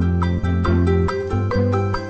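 Background music: a light instrumental tune of quick notes, about four a second, over a steady bass line.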